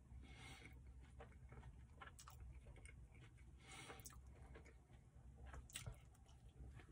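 Faint close-up chewing of a soft burrito: wet mouth clicks and smacks every second or two over a low steady hum, with the loudest click near the end as another bite is taken.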